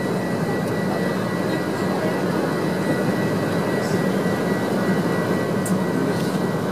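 Steady rush of engines and airflow inside an airliner cabin during the descent to land, with a thin high whine above it.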